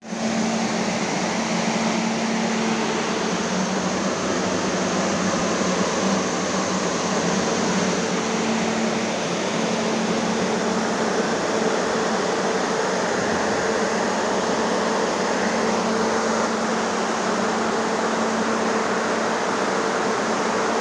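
Corn dryer's fans running steadily: a constant rushing of air with a steady low hum underneath.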